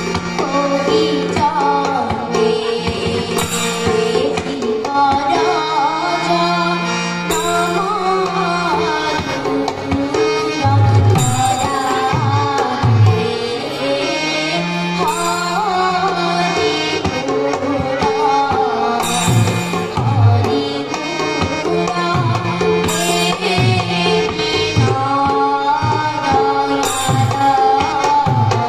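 A live Assamese Borgeet devotional song. Singing is carried over a steady harmonium drone and melody. A two-headed barrel drum plays deep beats, and bright metallic strokes come every few seconds.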